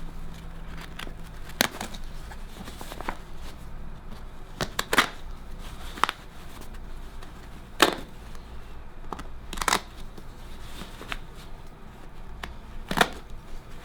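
Cutting through the seal of a canvas coin bag by hand: scattered sharp snips and clicks at irregular intervals, with quieter handling noise between.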